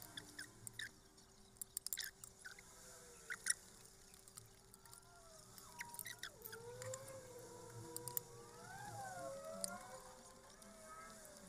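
Close-up eating sounds: sharp clicks of a metal fork and spoon against ceramic bowls and mouth smacks while chewing, bunched in the first few seconds. From about halfway a faint wavering tune plays in the background.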